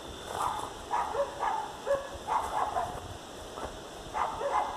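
Dogs barking in the distance: short, irregular barks, several in a row.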